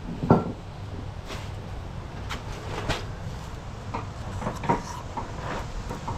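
Scattered clicks and knocks of metal engine parts and tools being handled during the teardown of a Sea-Doo's Rotax engine, roughly one every second.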